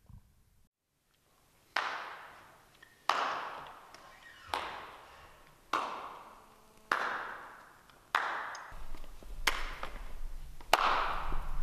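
Slow footsteps coming down wooden aisle steps in a large empty concert hall: about eight even steps a little over a second apart, each one echoing and dying away in the hall.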